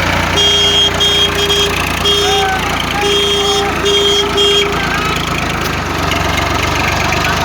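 Engine idling steadily. Over the first four and a half seconds, a beeping tone of one pitch sounds about seven times in short and longer beeps.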